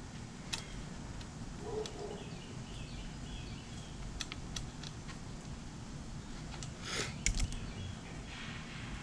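Scattered light clicks and clinks of hand tools and parts being handled while working on an outboard motor, with a short cluster of louder clicks and a clatter about seven seconds in.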